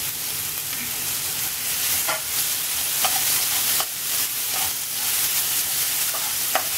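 Sliced onions, green chilli and ginger sizzling in coconut oil in a frying pan, sautéing, while a wooden spatula stirs them. The spatula gives a few short knocks and scrapes against the pan.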